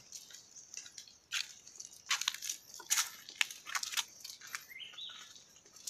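Footsteps crunching irregularly through dry leaf litter and twigs, with a short rising bird call late on.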